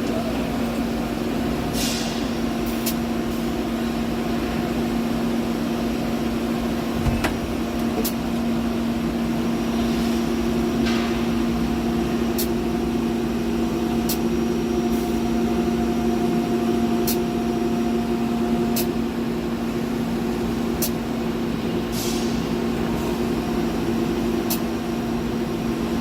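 Miyano BNX-51MSY CNC turning center running a dry cycle of the cutoff and spindle transfer with no cutting: a steady machine hum, a higher whine from about twelve to nineteen seconds in, a thump about seven seconds in, and scattered sharp clicks.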